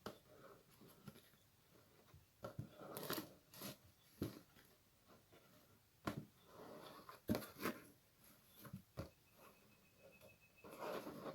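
Quiet, irregular rustling and crinkling in short bursts, with a few sharp clicks among them.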